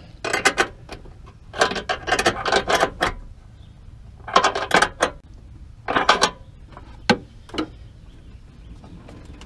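Socket ratchet clicking in short rapid runs as it tightens a bolt on a battery tray. There are four runs with pauses between them, then a couple of single clicks near the end.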